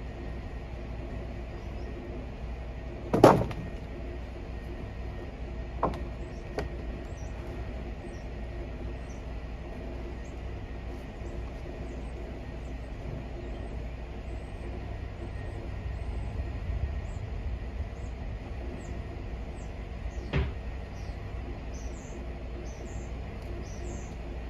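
A few sharp knocks over a steady low hum: one loud knock about three seconds in, two lighter ones a few seconds later, and another near the end.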